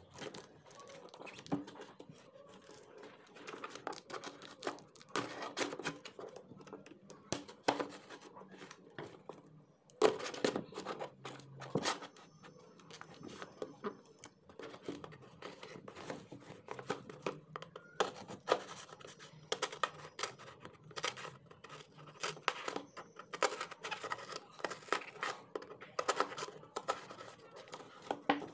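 A cardboard shipping box being opened by hand: a pointed tool scraping and cutting through packing tape, with tape tearing and cardboard rubbing in irregular scratches and clicks. There is a sharp loud knock or rip about ten seconds in.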